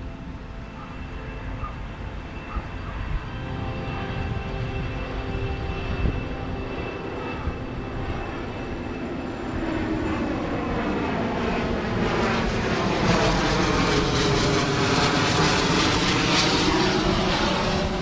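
An airplane flying over, its engine noise swelling through the second half to a peak near the end.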